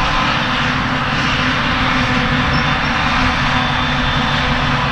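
Claas Jaguar 940 self-propelled forage harvester working in grass, its engine and chopper running steadily at full load with a constant drone and whine.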